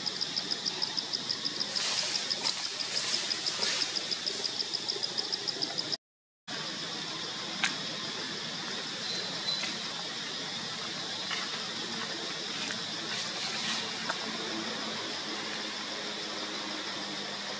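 Insects chirping in a high, rapidly pulsing trill that becomes a steadier high drone after a brief dropout about six seconds in. Scattered faint clicks and rustles of dry leaf litter sound over it.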